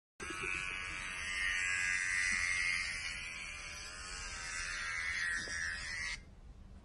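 Hair-clipper sound from a phone app, a steady electric buzz played through the phone's small speaker, cutting off suddenly about six seconds in.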